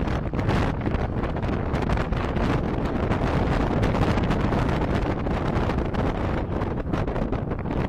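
Steady wind buffeting the microphone over the low rumble of a moving vehicle.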